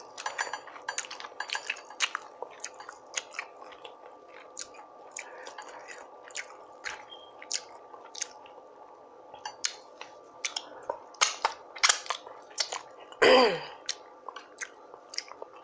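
Close-miked chewing of food, with many irregular wet mouth clicks and smacks, and a brief hummed "mm" about two-thirds of the way in.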